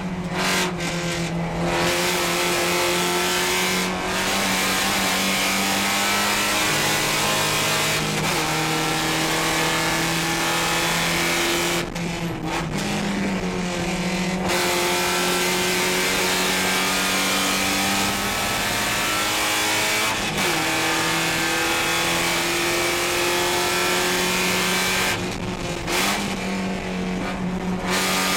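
Porsche 944 Spec race car's 2.5-litre four-cylinder engine heard from inside the cockpit under hard acceleration on track. Its pitch climbs steadily and falls back at each gear change, over steady wind and road noise, with brief lifts off the throttle about twelve seconds in and again near the end.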